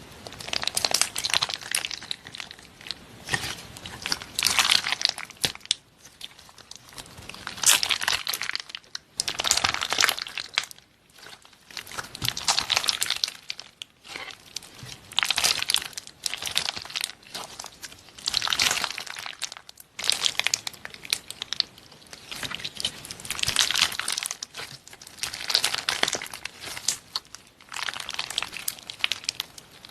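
Slime being squeezed and kneaded by hand, in repeated squishes every second or two.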